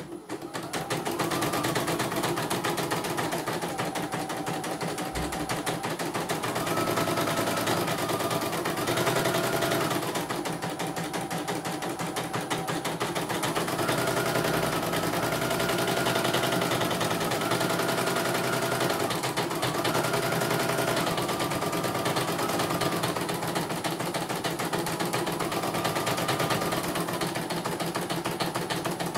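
CNY portable computerized embroidery machine stitching a design: a fast, steady needle rattle that starts at once, with the embroidery unit's motor whine stepping up and down in pitch as the hoop moves.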